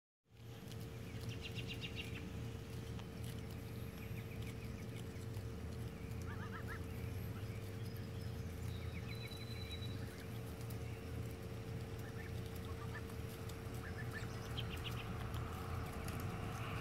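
Embden goslings giving short, scattered high peeps and trills over a steady low rumble and a faint steady hum.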